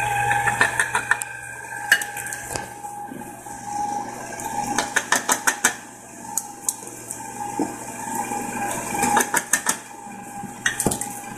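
Electric stand mixer running, its beater churning a thick cream cheese batter in a stainless steel bowl. Sharp metallic clinks come against the bowl in quick clusters as the dry sugar, cocoa and flour mix is added.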